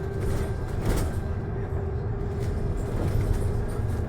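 Bus interior: the engine and road make a steady low rumble with a steady hum over it that fades about three seconds in, and a short knock or rattle about a second in.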